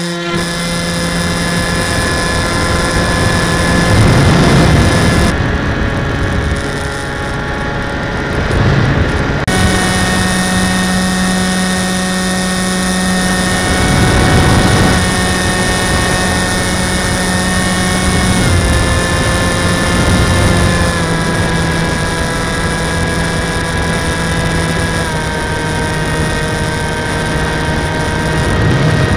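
Model plane's motor and propeller heard from the onboard camera in flight, a steady buzzing whine with rushing air over it. The pitch steps up about a third of the way in and drops in steps several times later as the throttle is changed.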